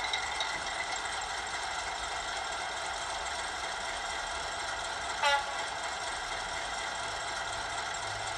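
Class 58 diesel sound file on an ESU Loksound decoder, playing through the model locomotive's small speaker: the engine idles steadily, with a brief horn toot about five seconds in.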